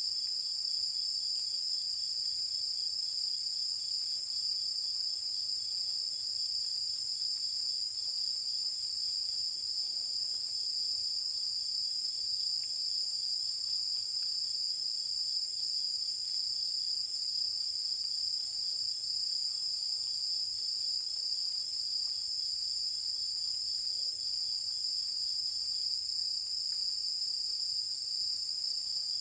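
Crickets and other insects chirping steadily at night, a dense high-pitched chorus with a fainter, rapid pulsing trill beneath it.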